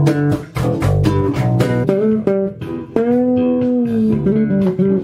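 Electric bass guitar being played: a run of separate plucked notes, then a note held for about a second that dips slightly in pitch before the plucking picks up again.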